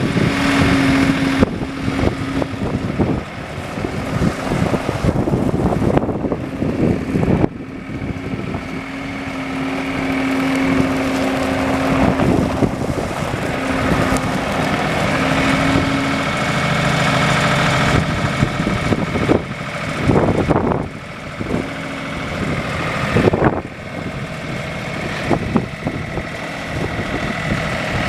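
New Holland LS185B skid steer loader's 78 hp turbo diesel running, its speed rising and falling, with occasional knocks and clanks.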